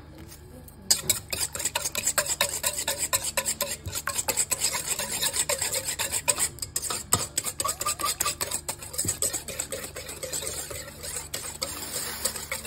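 Wire whisk beating a runny egg, yeast and sugar mixture in a stainless steel bowl: quick, rhythmic clicking and scraping of the wires against the metal, starting about a second in.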